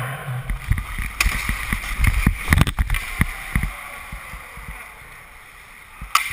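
Ice hockey play picked up by the players' own cameras: a busy run of knocks and clacks from sticks, puck and pads on the ice in the first few seconds, then quieter skating noise, and a single sharp click near the end.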